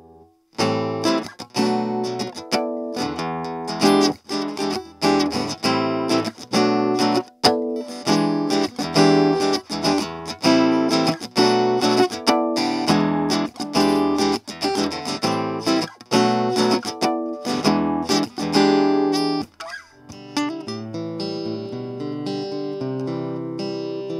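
Guitar strummed in chords through a Fender Passport Mini 7-watt portable amplifier. Near the end, after a short break, an electro-acoustic guitar with a Fishman pickup plays lighter picked notes through the amp's 'Natural' preset with plate reverb.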